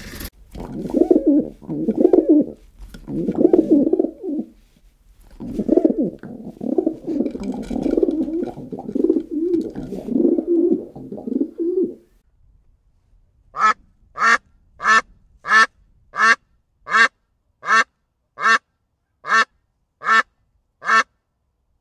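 Low, soft murmuring calls for about twelve seconds, then a duck quacking about a dozen times, loud and evenly spaced, a little under once a second.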